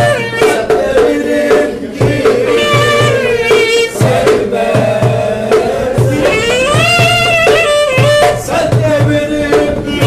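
Live Turkish folk dance music: a violin playing a wavering, ornamented melody over a steady darbuka beat, with a man singing along.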